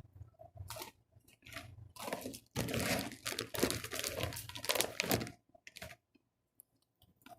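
Crunchy food being chewed close to the microphone: a few separate crunches, then a dense run of crackly crunching from about two seconds in to about five seconds in.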